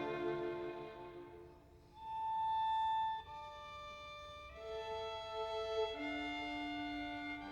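Background music: a slow melody on violin and bowed strings, with long held notes changing every second or so.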